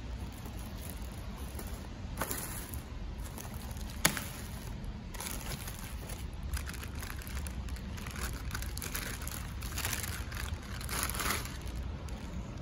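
Plastic shrink-wrap and plastic bags crinkling and rustling in bursts as they are pulled off a parts tray and handled, with one sharp click about four seconds in, over a steady low hum.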